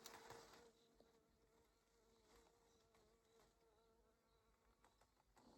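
Faint, steady buzz of a flying insect hovering near the microphone, wavering slightly in pitch; otherwise near silence.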